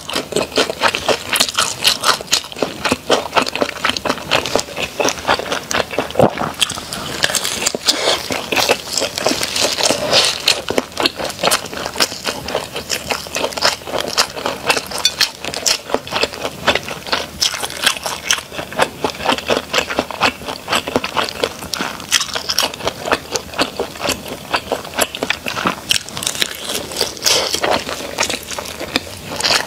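Close-miked eating: a person biting and chewing food, with a dense, continuous run of crackling, crunching mouth clicks.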